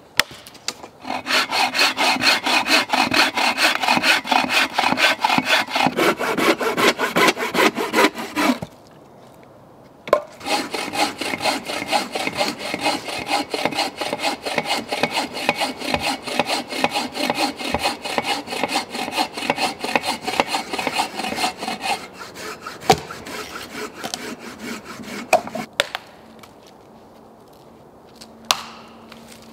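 Bow saw cutting through a dead log for firewood, with quick back-and-forth strokes in two long runs broken by a short pause about eight seconds in, the strokes weakening after about twenty-two seconds.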